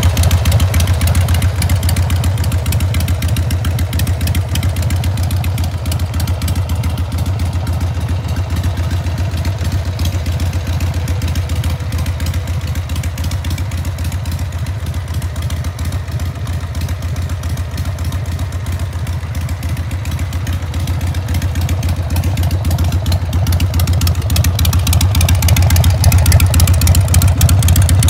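2001 Harley-Davidson Sportster XLH883's air-cooled Evolution V-twin idling steadily through short staggered exhaust pipes. It is a little quieter through the middle and louder in the last few seconds, heard close to the pipe outlets.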